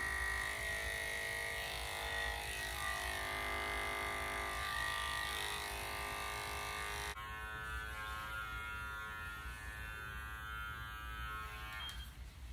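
Electric dog grooming clippers running with a steady motor hum. The hum changes abruptly and drops a little about seven seconds in, then stops near the end.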